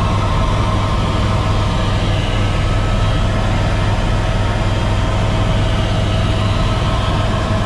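Helicopter running, heard from inside the cabin: a loud, steady drone with a strong low hum and a few steady higher whine tones over it.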